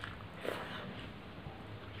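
Eating sounds: chewing with the mouth closed and fingers working rice and fish curry on a metal plate, with one brief wet squish about half a second in.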